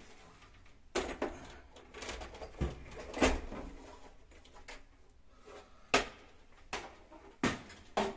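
Scattered knocks and clunks of handling against the open casing and parts of a wall-mounted gas condensing boiler: one about a second in, a busier run of knocks around two to three seconds in, then single sharp knocks near six, seven and a half and eight seconds.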